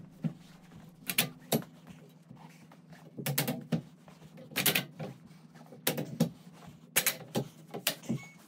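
Metal bed-frame tubing being knocked together by hand as the end frame is seated into the side and center rails: a string of sharp metal knocks, often in quick pairs, about one a second.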